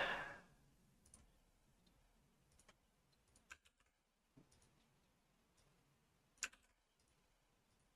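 A few faint, separate clicks of computer mouse and keyboard use over near silence, the loudest about six and a half seconds in.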